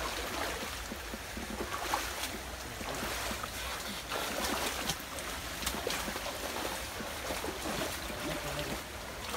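Several people wading through a shallow, flowing stream: water splashing and sloshing irregularly around their legs at each step, over the steady rush of the current.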